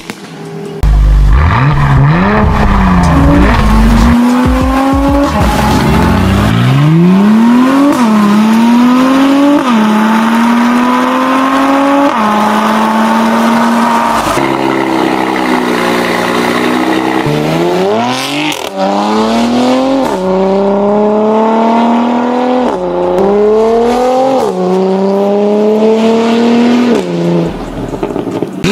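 Twin-turbo V6 cars with valvetronic cat-back exhausts accelerating hard through the gears. The exhaust note climbs in pitch in each gear and drops back at every upshift. Partway through, the sound changes from a Mercedes-AMG C43 to a Porsche Panamera 4S.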